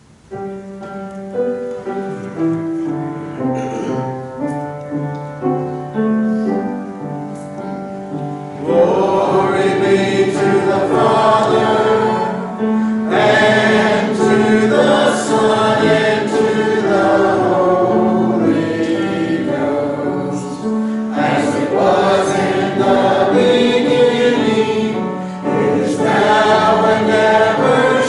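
A church congregation singing a hymn with instrumental accompaniment. For about the first nine seconds an instrument plays an introduction of held single notes, then many voices come in together and sing to the end.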